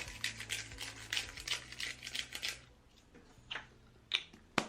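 Hand spice grinder being twisted, a rapid run of dry ratcheting clicks as chili pepper is ground, stopping about two and a half seconds in, followed by a few single clicks.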